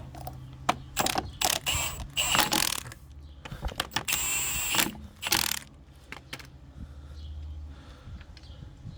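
A series of clicks and clunks from the Ford Focus ST's bonnet being released and opened, with a harsher, noisier clatter about four seconds in, then softer scattered clicks.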